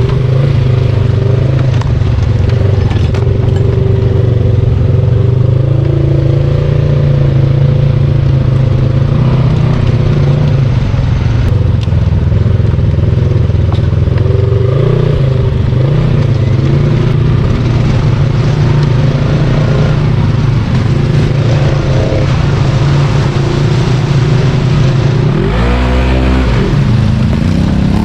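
Off-road vehicle engine running steadily on the trail, with a rev that rises and falls near the end.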